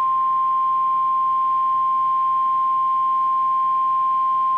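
NOAA Weather Radio's 1050 Hz warning alarm tone: one steady, unbroken tone, sounded as a weekly test of the alarm that switches on weather-alert receivers.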